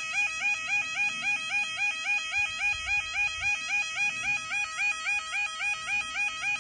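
Level crossing yodalarms sounding their warning warble, a steady two-tone alternation at about two and a half cycles a second, while the barriers are down for an approaching train.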